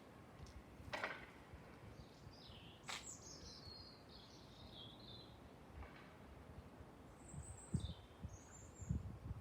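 Faint birdsong from small birds: high chirping, twittering phrases, strongest about three to five seconds in and again near the end, with a couple of sharp clicks early on and some low rumbling near the end.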